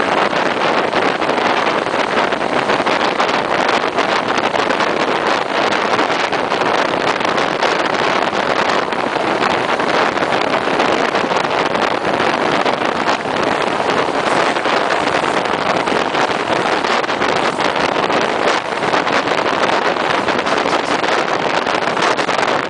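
Steady rush of wind buffeting the microphone, mixed with the running noise of a moving ALn668 diesel railcar, heard from its open window.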